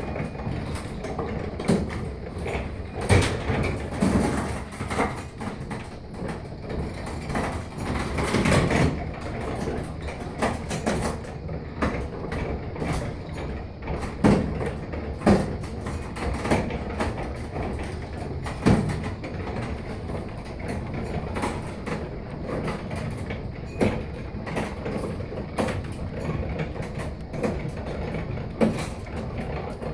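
Roll-off observatory roof being pulled open by a cable wound onto a hand crank: a steady low rumble of the roof rolling along its track, with irregular clicks and knocks from the crank and roof every second or two.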